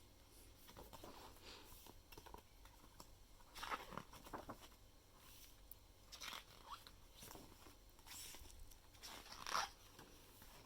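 Pages of an album's photobook being turned: a series of soft paper swishes and rustles, the loudest about four seconds in and again near the end.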